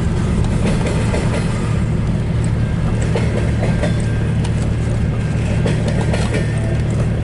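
Double-stack intermodal freight cars of a long CN train rolling past: a steady, loud rumble with scattered faint wheel clicks.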